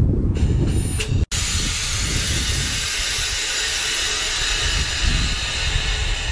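Compressed air hissing steadily from a rail hopper wagon's air brake gear. It starts abruptly about a second in, over a low, uneven rumble of wind on the microphone.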